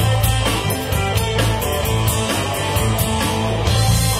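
Rock band playing: electric guitars over a heavy bass line and drums, with cymbals struck in a steady beat.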